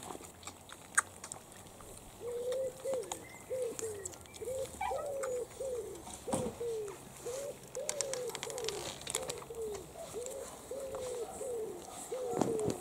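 A pigeon cooing, low soft notes in repeated phrases, each a longer note followed by a few shorter ones, running from about two seconds in.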